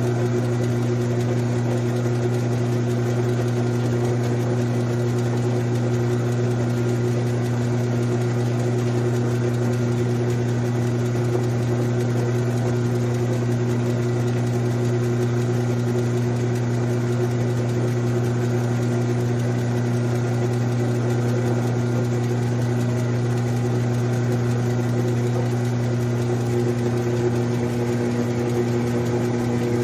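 Grizzly G9972Z metal lathe running with its chuck spinning. It gives a steady hum with a strong low drone and a few fainter higher whining tones, unchanged throughout.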